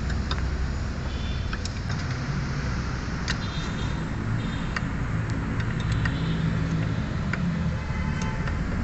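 Steady low rumble of a motor vehicle running, with scattered light metallic clicks as hands work on a brake master cylinder.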